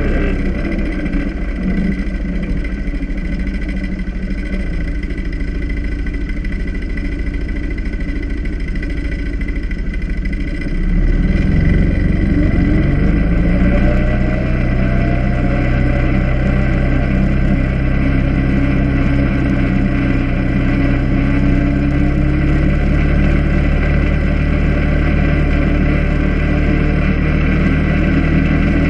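ATV engine running under way, its pitch falling at the start, then speeding up about eleven seconds in and running louder and steady after that.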